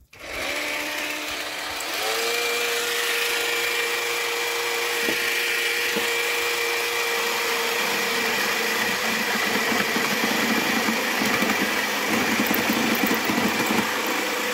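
Parkside cordless jigsaw spinning up over the first couple of seconds, then running steadily while its blade saws through a wooden beam under load. A steady motor hum with the rasp of the blade cutting wood.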